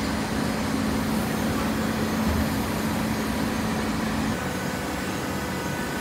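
Hydraulic cardboard baler running: a steady machine hum with a low steady tone that drops away about four seconds in.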